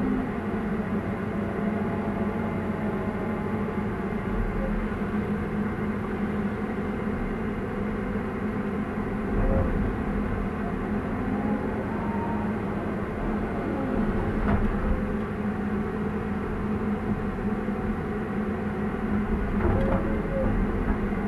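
Hydraulic excavator's diesel engine running steadily under working load, heard from inside the cab. A whine rises and falls now and then as the hydraulics are worked, with a couple of brief knocks near the end.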